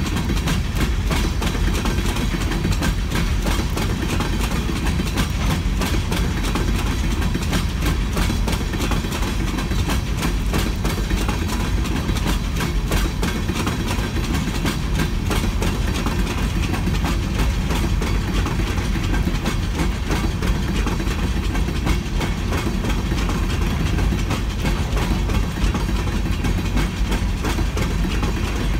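Freight train of coal hopper cars rolling past: a steady rumble of steel wheels on rail with a continuous dense clatter of wheels and couplers.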